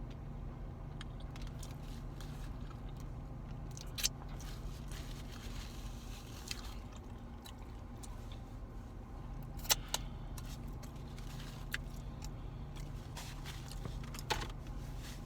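A person chewing a bacon and egg burger, with scattered short clicks and mouth sounds over a steady low hum.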